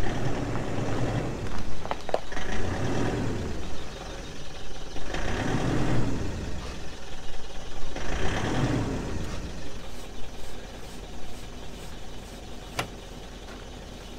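Mitsubishi L200 pickup's engine running and revving up in several swells as it reverses toward the trailer, then settling lower. A single sharp click near the end.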